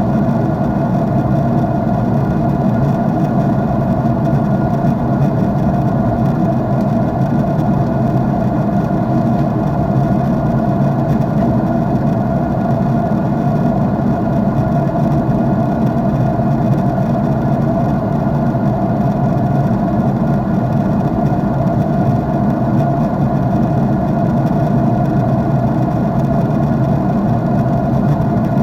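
Jet airliner cabin noise in flight, heard from a window seat: the engines and the rushing airflow make one steady, even drone with a low hum that does not change.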